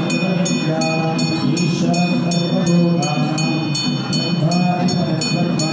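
Tamil temple music: a reed pipe plays a wavering melody over a steady drone, with sharp metallic strokes about three times a second.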